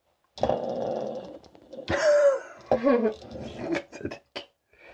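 A child's voice making a growling, whooshing jet-engine noise with gliding pitch, mimicking a toy fighter jet, followed by a few short clicks.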